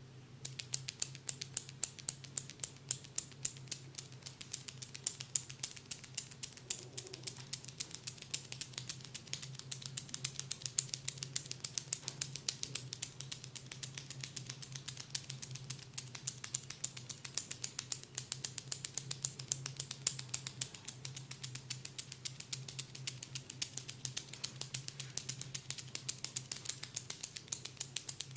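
Pin pen massage tool tapping rapidly on the forehead: a quick, even run of light clicks, several a second, over a low steady hum.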